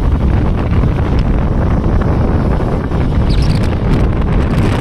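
Loud, steady wind buffeting on the microphone, a continuous low rumble with no let-up.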